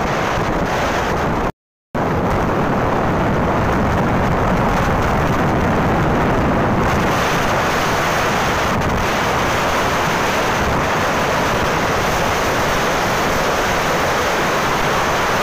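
Steady wind rush on the microphone and road noise from a moving motorcycle. The sound cuts out completely for a moment about a second and a half in.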